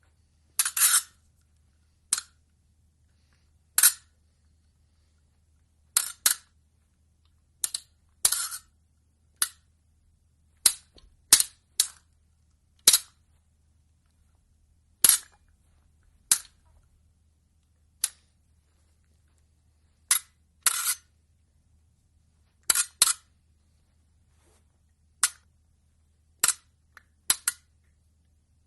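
Fencing blades clashing in short, sharp clicks, sometimes single and sometimes in quick pairs or triples, at irregular gaps of one to two seconds. A faint low hum lies beneath.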